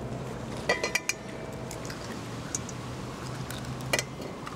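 Eggs cracked against the rim of an enamel bowl: a clinking knock with a short ring about a second in, and another sharp knock near the end.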